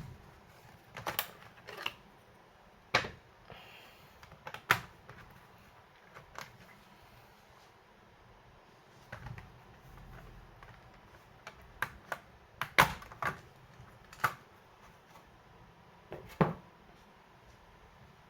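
Irregular clicks and knocks of hands handling a laptop's plastic bottom case and drive parts, with a cluster of the loudest taps about two-thirds of the way through.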